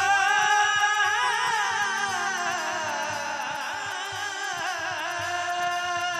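A man singing long, held notes with a wavering, ornamented pitch into a microphone, amplified over the stage sound system, slowly fading. Underneath is music with a low, regular drum beat.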